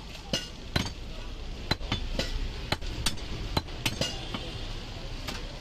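Heavy cleaver chopping a goat leg on a wooden tree-stump block: a run of sharp, unevenly spaced chops about two a second, with a gap before a last chop near the end.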